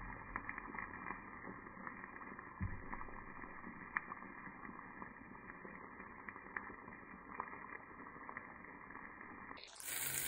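Tomato sauce simmering in a frying pan: a faint, muffled bubbling with scattered small pops. Near the end a louder, brighter sizzle starts suddenly.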